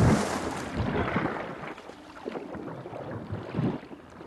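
Bull hippos fighting in muddy shallows: heavy splashing and churning of water and mud, with a big splash at the start that fades into sloshing.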